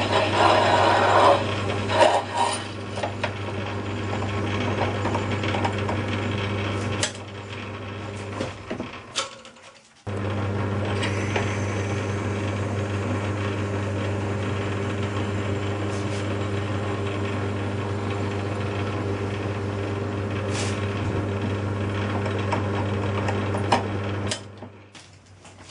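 Metal lathe running with a steady motor hum while a twist drill cuts the flywheel's centre bore, the cutting loudest in the first couple of seconds. After a brief break about nine seconds in, the lathe runs on steadily as a reamer sizes the bore. The sound falls away near the end.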